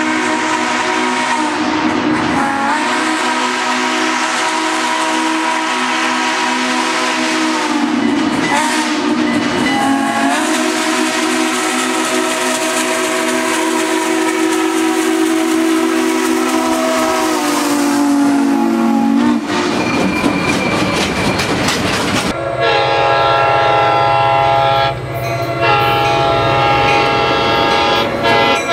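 Recorded steam locomotive chime whistle blowing long blasts, its pitch sagging as it opens and closes, followed by the rumble and wheel clatter of the train passing. About 22 seconds in, the sound cuts abruptly to another train's horn sounding over a low engine drone.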